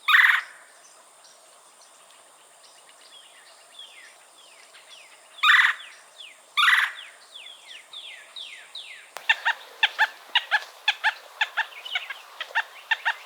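Red-bellied woodpecker giving its churr call three times, each a short rolling trill of about half a second. About nine seconds in, it changes to a rapid run of short squeaky notes, about four a second, which sound like a rubbed sponge.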